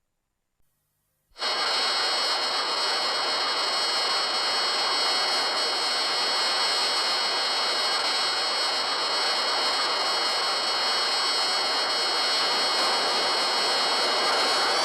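Showa-era MechaGodzilla film sound effect: a steady jet-like rushing hiss with several high whining tones held on top of it, starting abruptly about a second in.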